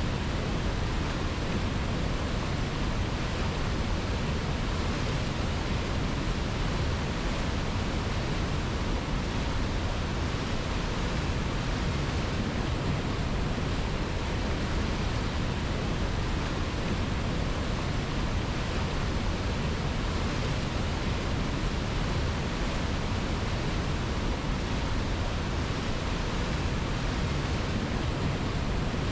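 Steady rushing of river water: an even, unbroken hiss with no changes.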